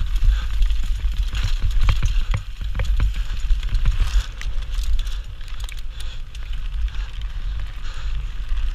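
Mountain bike descending a rocky dirt and gravel trail at speed: steady wind rumble on the GoPro's microphone, with the tyres crunching over stones and the bike rattling and knocking over rocks, the knocks thickest in the first few seconds.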